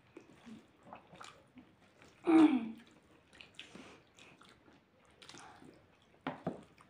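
Close-up eating sounds: chewing and small wet clicks as hands mix rice and greens on steel plates. About two seconds in comes a short voiced sound that falls in pitch, the loudest thing here, and near the end another sharp sound.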